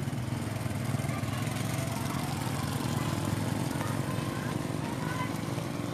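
A small motorcycle engine running steadily as the bike passes close by on a wet road and rides away.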